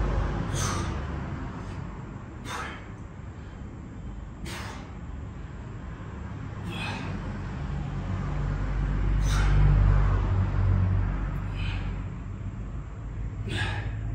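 A lifter's forceful breaths during dumbbell Romanian deadlifts: one short, sharp breath about every two seconds, seven in all, in time with the reps. A steady low rumble runs underneath and swells a little past the middle.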